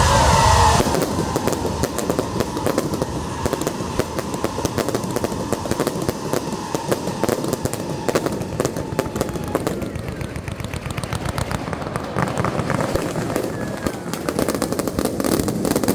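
Fireworks display: a dense, continuous crackling and popping from many small aerial bursts.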